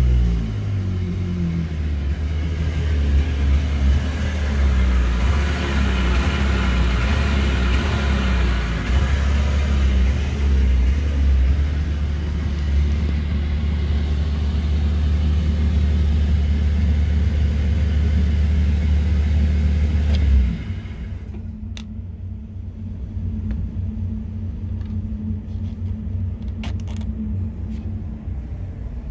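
Rescue boat's outboard motor running steadily at idle in neutral during a routine test start-up, then cutting out suddenly about two-thirds of the way through. A quieter low rumble and a few sharp clicks remain after it stops.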